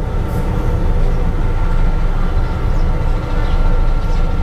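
KRL commuter electric train running along the track, heard from the front cab: a loud, steady rumble with a faint steady whine over it and a few faint ticks.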